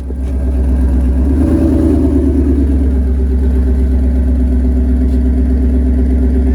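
Ford Mustang V8 engine firing up, flaring briefly about one to two seconds in, then settling into a steady idle through the exhaust, which the owner says is leaking right at a clamp.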